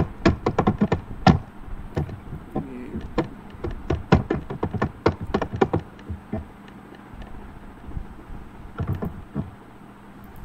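Rapid, irregular clicks and knocks picked up by the microphone, thick at first and then thinning out to a few scattered ones near the end. It is unwanted noise on the lecture's audio, which the speaker calls a lot of noise and says is better once it stops.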